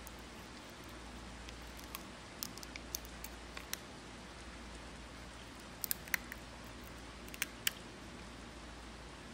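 Foil lid being peeled back and handled on a small plastic cup of jelly gouache: light crinkles and sharp clicks, a cluster about two to four seconds in and a few louder ones around six and seven and a half seconds, over a steady faint hiss.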